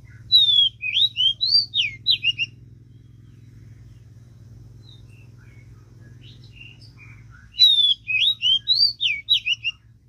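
A songbird's quick phrase of clear whistled notes sliding up and down, heard twice about seven seconds apart. The two phrases are note-for-note identical, typical of a looped lure-call recording used to trap birds. Faint scattered chirps come between the two phrases.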